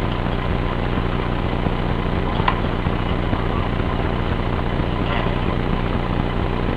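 A steady low mechanical hum with a single faint click about two and a half seconds in.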